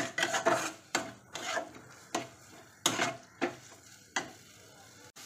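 Steel spatula scraping and stirring against the side of a metal kadai, in irregular strokes roughly every half second, as fish roe is fried down in a thick spiced onion-tomato masala. The strokes stop about four seconds in.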